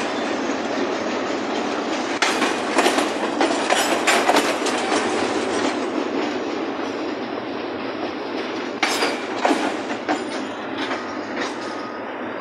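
Freight train of boxcars and double-stack container well cars rolling past close by. Its wheels on the rails make a steady rumble, with bunches of sharp clicks and clanks about two to five seconds in and again around nine to eleven seconds.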